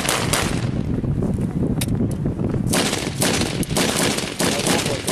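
Gunfire in a firefight: a few scattered shots, then a dense run of rapid shots from about two and a half seconds in, over a steady low rumble.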